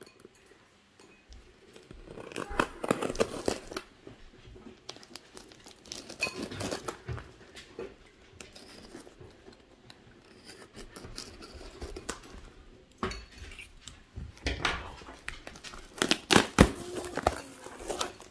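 Craft knife slicing and scraping through clear packing tape on a cardboard box, in several separate bursts, with the cardboard flaps pulled open near the end, the loudest part. Someone eating in the background, with clinks of cutlery and dishes.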